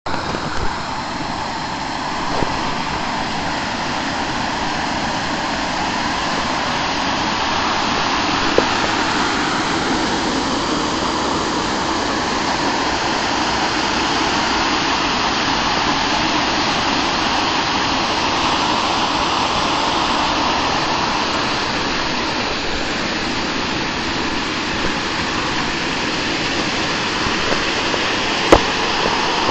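Water pouring over a mill dam and splashing onto the rocks below: a steady rush, with a sharp click near the end.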